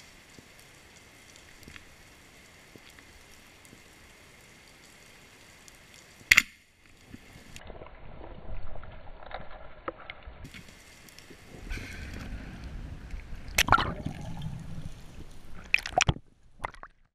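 Quiet underwater ambience with faint crackling clicks, broken about six seconds in by one sharp, loud crack. Later, water sloshing and lapping at the sea surface with a low wave rumble and a few sharp splashes.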